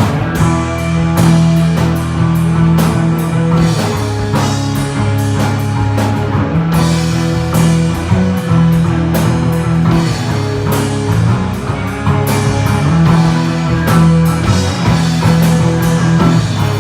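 A rock trio of bass guitar, guitar and drum kit playing loudly together, with no vocals: sustained bass notes under steady drum hits and guitar.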